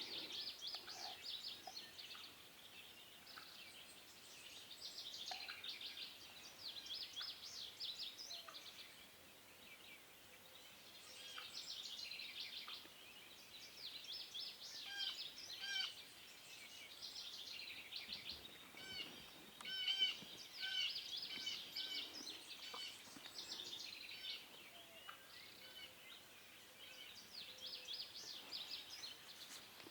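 Wild birds singing and chirping, many quick notes and trills overlapping in a morning chorus.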